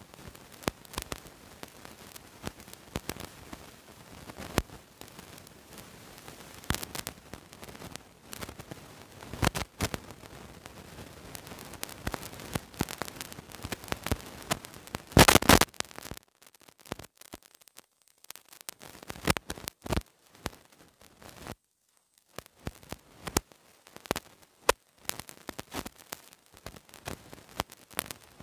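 Drafting on paper with a pencil, a steel ruler and a marker: irregular taps, clicks and scratching on the paper, with one louder scrape just past halfway.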